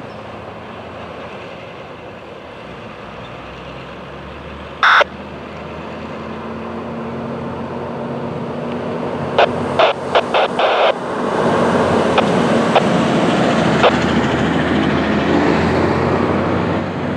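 Norfolk Southern double-stack intermodal freight train rolling through a grade crossing with a steady rumble. A short, loud beep comes about five seconds in, and a quick run of about six clanks comes a few seconds later. The rumble grows louder from the middle on.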